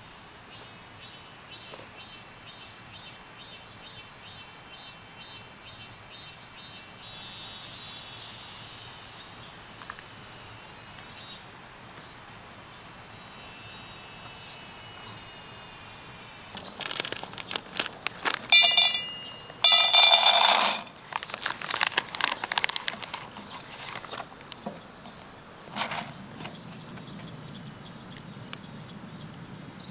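Outdoor ambience with a steady high insect drone. For the first seven seconds a high call repeats about twice a second. Later a burst of loud crackling and clattering noises runs for several seconds.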